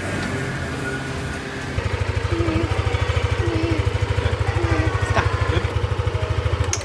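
Music for the first couple of seconds, then a Yamaha XMAX scooter's single-cylinder engine idling with a fast, even pulse until it cuts off suddenly near the end.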